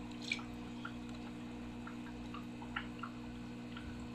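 Faint small water drips and plinks, the sharpest about a third of a second in and another near three seconds, over a steady low hum.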